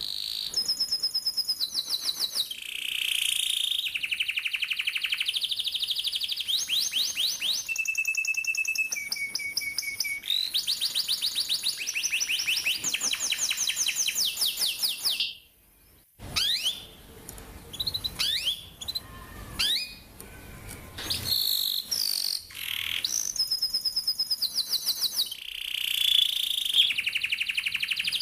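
Domestic canary singing long rolled trills: fast runs of rapidly repeated high notes, each run at a different pitch. About halfway through the song breaks off briefly into scattered chirps, then the rolling trills resume.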